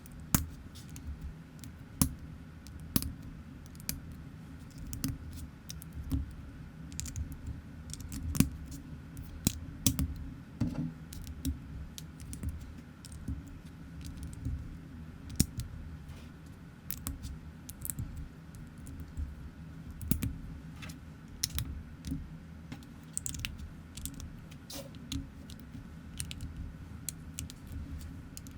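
Plastic LEGO-compatible building bricks clicking and rattling as pieces are handled and snapped together, in irregular sharp clicks one to a few a second over a low steady hum.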